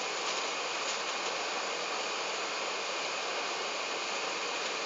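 Steady cabin noise inside an Airbus A380 taxiing on the ground: the hiss of the cabin air and the engines, with a faint steady high whine.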